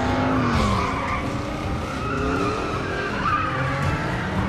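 Racing cars' engines revving with tyres squealing as they slide through a turn. The engine pitch falls over the first second and rises again near the end.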